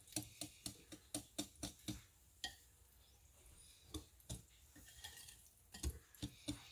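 Wire whisk clicking against a ceramic mixing bowl while stirring cake batter: faint, quick ticks about four a second, a short pause partway through, then more scattered ticks.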